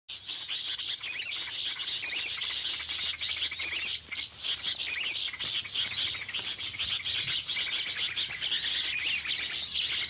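Small birds chirping and twittering in quick, overlapping calls, over a steady high-pitched insect buzz.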